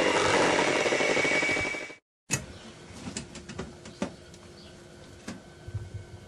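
Electric hand mixer running steadily while beating egg whites, cutting off abruptly about two seconds in. After a brief silence there is a sharp clack, then scattered light knocks and clatter as an oven door is opened and the baking inside is handled.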